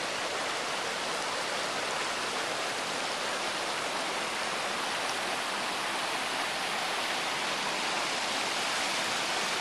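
Rocky mountain creek rushing steadily over stones and small riffles, growing slightly louder near the end.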